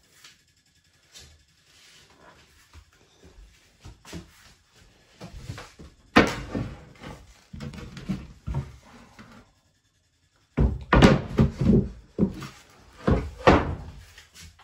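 Knocks and clatter of a wooden cabin floor hatch panel being handled, lifted and set back down, in two loud runs: one about six seconds in and another from about eleven seconds.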